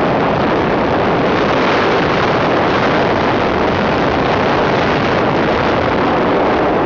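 Steady loud rush of wind on the microphone of a camera riding on a moving motorbike, mixed with the bike's engine and road noise.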